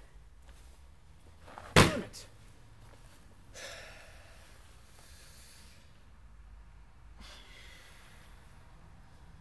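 One sudden, loud slam-like hit about two seconds in, with a short falling tone trailing after it. A fainter breathy rush follows a couple of seconds later, and low room tone fills the rest.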